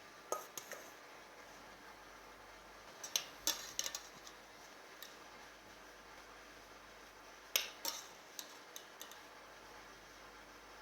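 Cutlery clinking and tapping against dishes while food is plated: three short groups of sharp clicks a few seconds apart.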